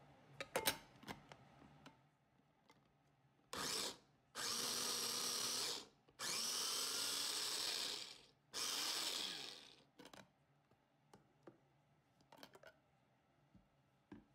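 Toffy electric food chopper run in four pulses, one short and three longer, its motor whining as the blades chop raw vegetables, with the pitch falling away as it winds down after each pulse. Clicks and knocks of the motor unit and lid being fitted and lifted off come before and after the pulses.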